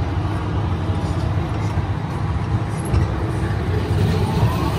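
Jung Max Circus kiddie train rolling along its track, a steady low rumble of the carriages, with a faint rising whine near the end.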